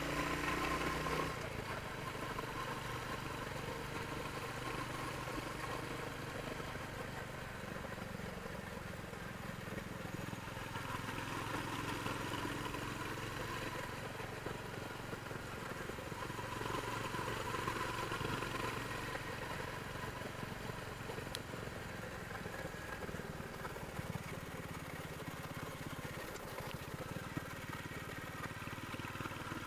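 Royal Enfield Hunter 350's single-cylinder engine running through its stock exhaust, easing off about a second in and then holding a steady note.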